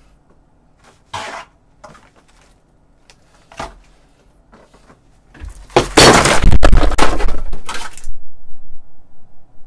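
Fried-chicken delivery packaging being opened: a few small rustles and knocks, then loud, dense crinkling of the cardboard box and its paper liner for two to three seconds, fading near the end.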